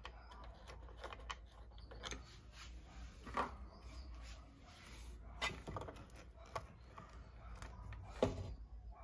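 Light clicks and knocks as hands handle the metal steering-shaft housing and plastic frame parts of a Ninebot Mini self-balancing scooter. The sharpest knocks come about three and a half seconds in and again near the end.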